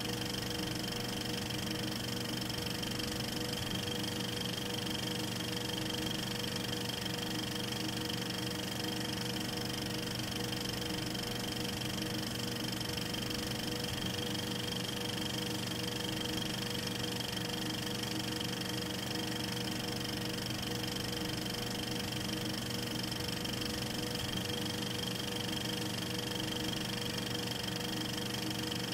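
Film projector running: a steady mechanical whir and hum with a few fixed whining tones, unchanging throughout.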